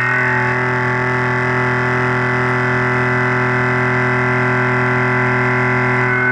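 Indexable carbide weld-prep mill facing 4140 pre-hard steel at 2500 RPM, taking a 0.300-inch-deep cut. The cut makes a loud, steady ringing drone with many overtones that holds unchanged.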